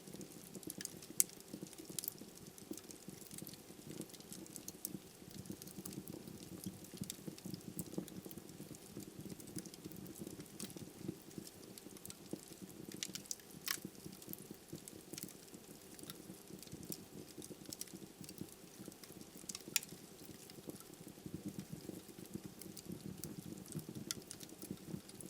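Wood fire burning in a fireplace: a steady low flutter of flames with frequent small, irregular crackles from the burning logs and a few sharper pops.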